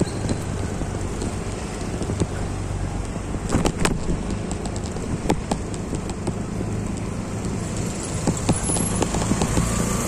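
Motor vehicle running at low speed along a street: a steady low engine hum with road noise, broken by scattered clicks and knocks, a tight cluster of them about three and a half seconds in.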